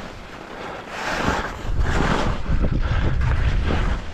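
Wind buffeting the microphone, a rushing noise with a heavy low rumble through the second half.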